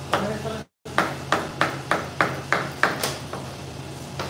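Kitchen knife chopping on a cutting board: a run of about eight quick, even chops, roughly three a second, between about one and three seconds in.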